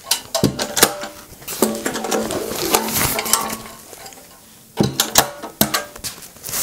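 Sheet-metal ammunition boxes knocking and clinking as they are handled and packed: a series of sharp metallic knocks, with a quiet pause before a last cluster near the end.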